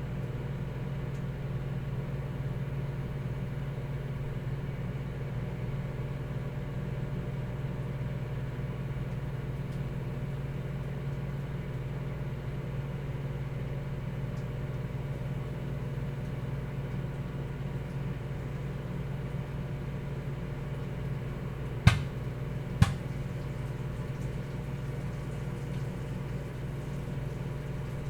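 Microwave oven running with a steady low hum while popcorn cooks inside. Two sharp pops come a little under a second apart, about two-thirds of the way through: the first kernels popping.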